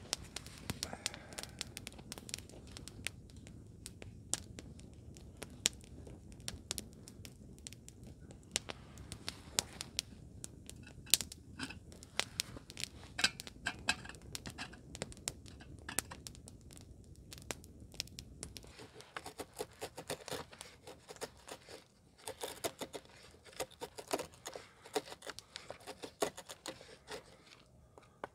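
Irregular crackling, tearing and crinkling of dry material being handled, with many small sharp snaps. A low steady rumble underneath stops about two-thirds of the way through, and the crackles come thicker after that.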